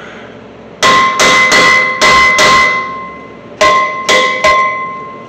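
Hammer striking a tack-welded steel shock mount on a truck frame, eight ringing metallic blows: five in quick succession, then three more after a short pause. The mount is being knocked into position; it sits too high.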